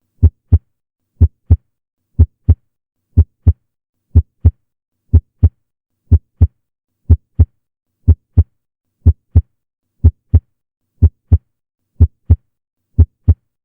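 Normal human heart sounds: a steady lub-dub, the first and second heart sounds as paired low thumps about a third of a second apart. The pairs repeat about once a second, around 60 beats a minute.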